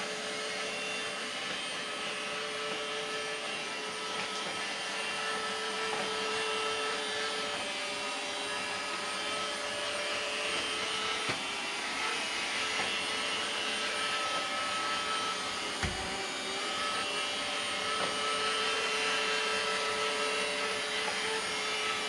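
Small round robot vacuum running over a tile floor: a steady motor whir with a constant hum. Two brief knocks come about eleven and sixteen seconds in.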